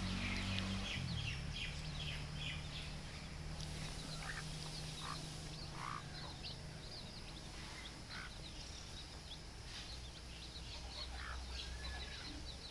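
A flock of baby chicks peeping: many short, high, falling chirps overlapping throughout, with a few lower, longer calls mixed in. A low steady hum runs underneath.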